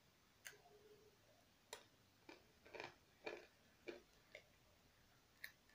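Faint, irregular crunching of a person biting and chewing a crunchy chocolate malted-milk candy egg, about eight separate crunches.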